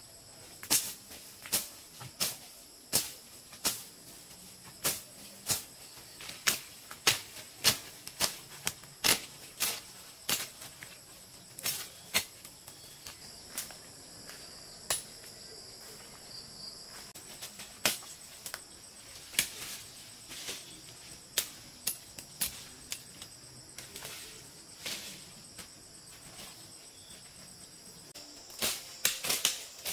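Footsteps through forest undergrowth at a walking pace, sharp steps about one and a half a second, thinning out for a few seconds in the middle. Under them, a steady high drone of insects, crickets or cicadas.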